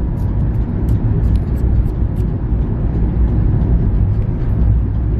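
Steady low rumble of a running vehicle, heard from inside the cabin of a van, with a few faint light ticks in the first half.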